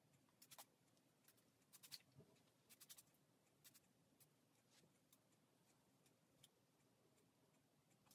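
Near silence with faint, scattered soft clicks and ticks, clustered in the first three seconds and sparser after.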